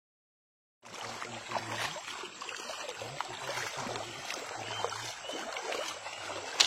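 River water sloshing and splashing, with scattered knocks, starting after nearly a second of silence.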